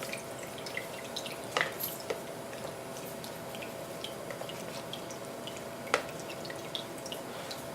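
Water dripping from freshly drained shrimp: many small, irregular drips, with a few sharper knocks about one and a half, two and six seconds in.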